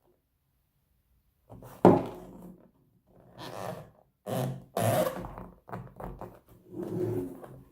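A revolver in a leather holster being handled: a sharp thunk about two seconds in, then irregular rubbing and knocking of handling.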